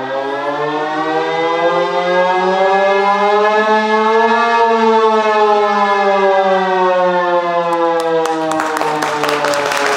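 A loud, sustained wailing tone, siren-like, that slides slowly up in pitch to a peak about halfway through and then back down. Applause breaks out near the end.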